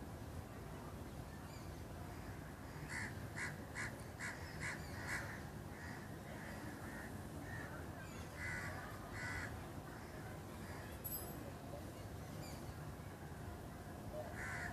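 A bird calling, faint: a quick run of about six short calls a few seconds in, then a few more scattered calls, over a steady low background hum.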